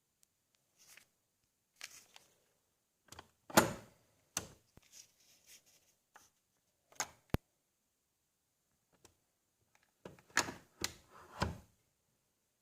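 Scattered clicks and knocks of hard plastic being handled, as a tea capsule and the Nespresso Inissia machine are readied. The loudest knock comes a few seconds in, a sharp single click about halfway, and a quick run of knocks near the end.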